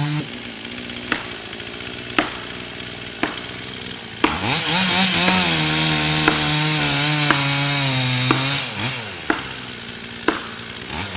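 Gas chainsaw cutting into a large tree trunk during felling: the engine drops from full revs to a low run at the start, revs back up about four seconds in and holds under load while cutting, then falls off again near the end. Sharp knocks come about once a second throughout.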